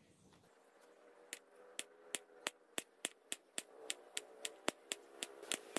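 Kitchen knife slicing through a peeled banana and tapping the wooden cutting board with each cut: a steady run of sharp clicks, about three or four a second, that starts about a second and a half in.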